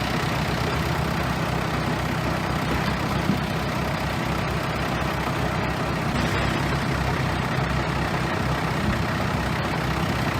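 Bulldozer's diesel engine running steadily at an even pitch.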